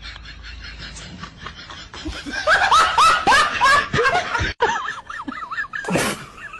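Gull calling: a quick series of loud laughing calls, each note dropping in pitch, followed by shorter wavering calls.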